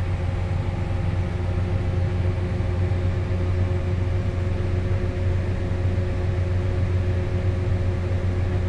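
Farm tractor's engine running steadily: a constant low drone with a few steady higher tones over it.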